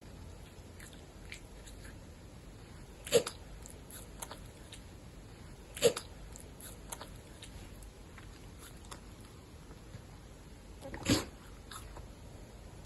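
A caracal sneezing three times, a few seconds apart: short sharp sneezes, the last a little longer than the others.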